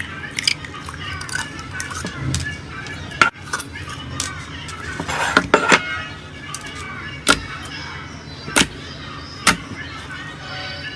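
Slime being squeezed and worked by hand, giving a string of sharp clicks and pops, with a few louder pops in the second half.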